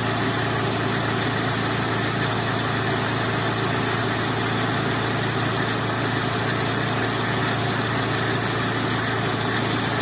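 Car engine idling with the A/C compressor engaged and the electric cooling fan running: a steady, unbroken hum and whir. The owner hears a slight bearing issue in the compressor.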